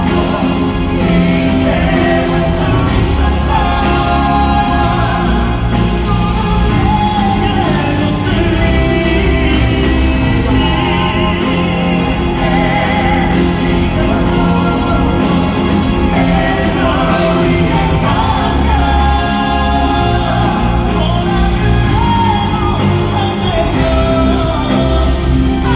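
Live band playing a ballad with singing, and scattered shouts from the crowd.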